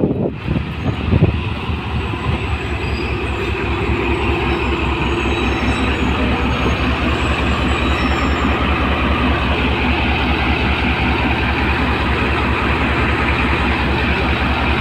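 Diesel locomotive of an arriving passenger train passing close alongside the platform, its engine running with a steady heavy rumble and even pulsing throb.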